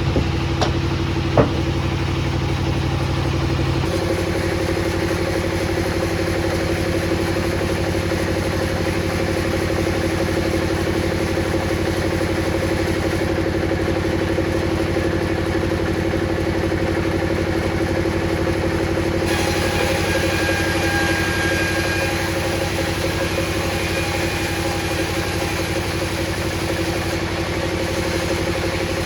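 Table saw motor running steadily with a constant hum, with a couple of sharp knocks in the first second and a half.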